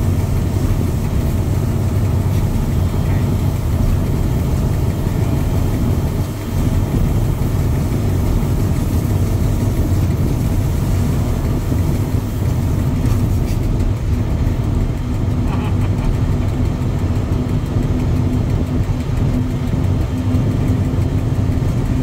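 Diesel train running along the line: a steady low rumble of the engine and wheels on the rails. A steady hum joins in about halfway through.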